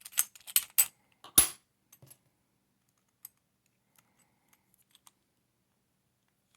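Lock-picking tools working in a Master Lock 410 lockout-tagout padlock: a quick run of small metallic clicks and rattles, with one sharper click about a second and a half in, then only a few faint ticks.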